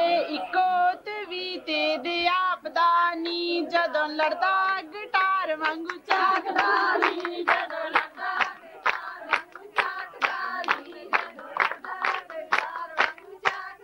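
A woman's voice singing a Punjabi boli, with a wavering, held melody; about six seconds in, a group of women take up the steady rhythmic hand-clapping of giddha, with voices singing along under the claps.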